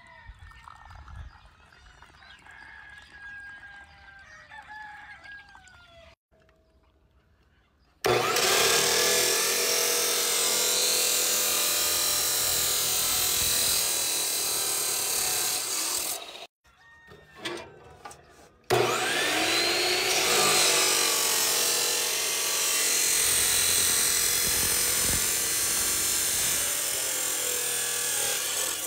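Abrasive cut-off saw grinding through red steel square tubing: two long cuts, the first starting about eight seconds in and the second starting about nineteen seconds in, with a short break between them. The first few seconds hold only faint sounds.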